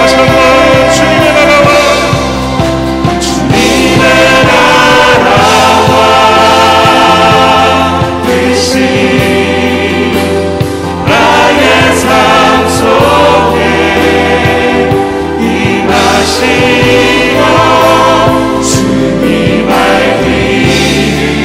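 Mixed group of men and women singing a Korean contemporary worship song together, backed by a band with acoustic guitar and keyboard over a steady beat.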